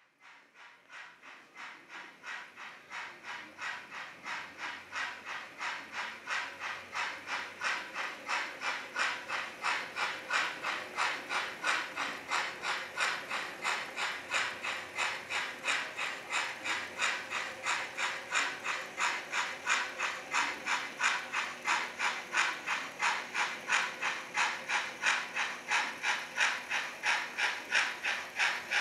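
HO-scale model steam locomotive's sound: steady rhythmic steam chuffing, a few chuffs a second, growing louder as the locomotive approaches across the trestle.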